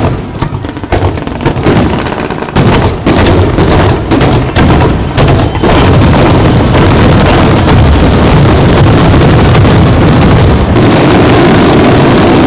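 Aerial fireworks barrage: rapid overlapping bangs and crackles that thicken about halfway through into a continuous, very loud volley, typical of a display's finale.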